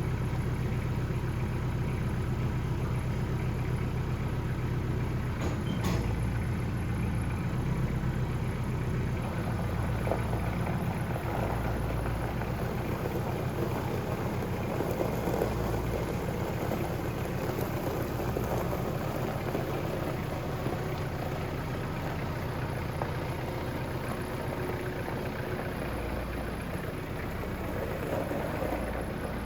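An engine idling steadily, a low continuous hum.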